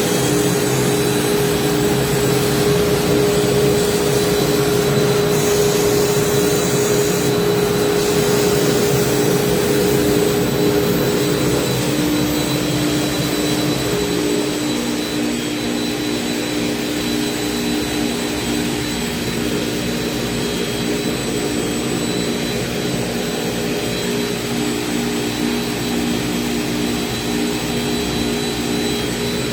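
CNC router spindle running and cutting, a steady high whine made of several pitches over a rushing noise. About twelve seconds in the pitch pattern shifts and it gets slightly quieter.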